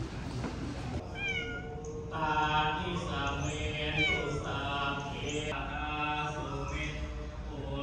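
A domestic cat meowing repeatedly, starting about a second in, with several calls falling in pitch.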